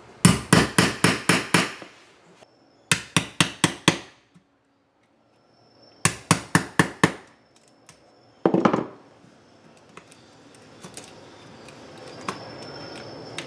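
Hammer tapping a chisel into the wall material beneath a metal outlet box: three quick runs of about four blows a second, seven, five and six strikes, then one more blow a little later.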